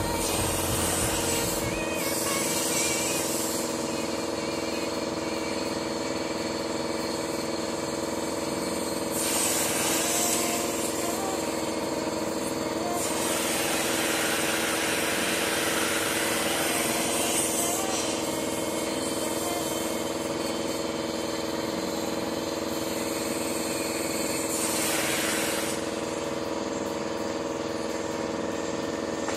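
Oxy-fuel torch hissing as it heats rusted subframe hardware, the hiss swelling in stretches of a few seconds over a steady machine hum.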